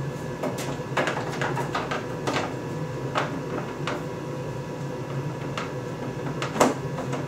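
Plastic door skin panel being handled and fitted: a scattering of knocks and clicks, the loudest near the end, over a steady low hum.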